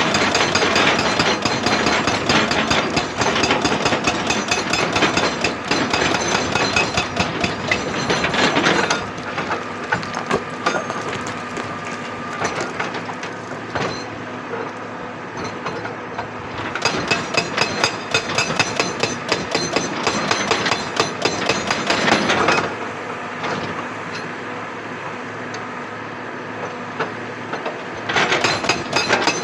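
Excavator-mounted hydraulic rock breaker hammering rock in three bursts of rapid blows, the longest lasting about nine seconds, with the excavator's diesel engine running steadily between them.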